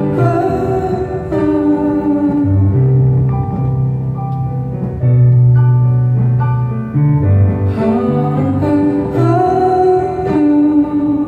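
A song: a man singing into a handheld microphone over a backing track of held keyboard chords and a slow-moving bass line.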